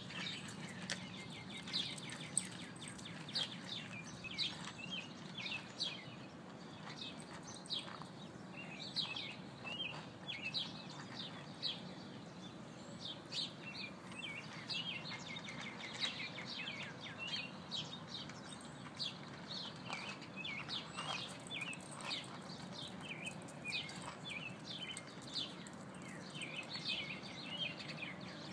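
A litter of six-week-old Schipperke puppies squeaking and whining, short high-pitched squeaks overlapping several times a second, over a steady low hum.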